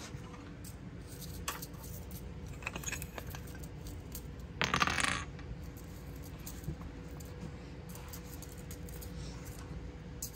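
Kittens playing on a tile floor: scattered light taps and scuffles, and a short, louder clatter of a small hard object about halfway through.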